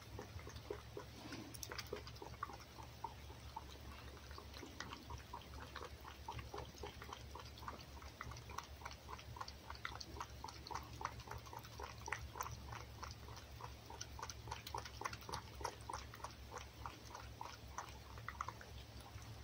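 A red fox lapping raw egg from an enamel bowl: a quiet, even run of wet licking clicks, about three or four a second.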